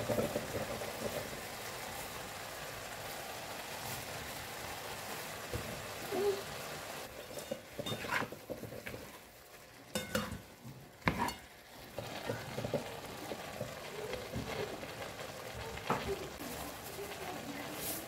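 Food sizzling in a frying pan as it is stirred, a steady hiss. There are a few sharp clacks of the utensil against the pan about halfway through.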